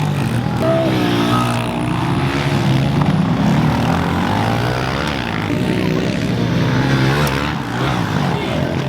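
Small four-stroke pit bike engines revving up and down as they ride laps, several overlapping, each pitch rising and falling with throttle and gear changes.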